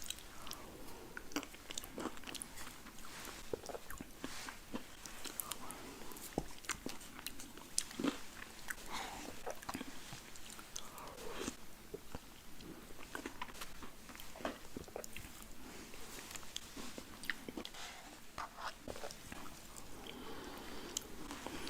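Close-miked ASMR eating of a burger and french fries: repeated biting and chewing with irregular crisp crunches and clicks.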